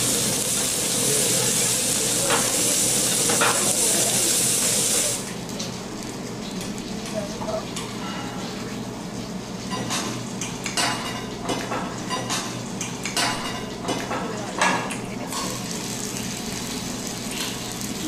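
Meat sizzling on a tabletop grill, a loud steady hiss that cuts off suddenly about five seconds in. After that comes a run of light clinks of chopsticks against dishes as someone eats.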